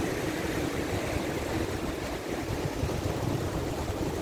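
Steady wind rush on the microphone of a camera carried on a moving bicycle, blended with the low rumble of street traffic.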